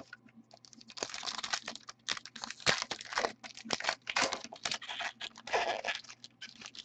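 Foil wrapper of a trading-card pack being torn open and crinkled by hand, an irregular run of crackles.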